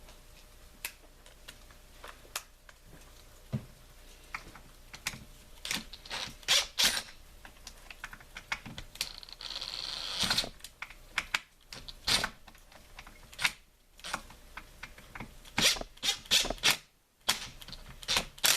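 Scattered clicks and knocks of hand work on a chainsaw's pull-start assembly, with a brief scraping hiss about ten seconds in.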